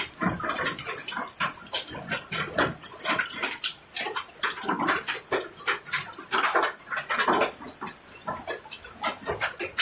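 Hail falling and striking the ground: a dense run of sharp, irregularly spaced impacts.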